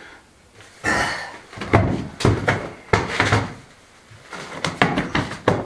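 A large, roughly round stone being tipped and rolled by hand across the floor: a series of heavy knocks and thuds, starting about a second in.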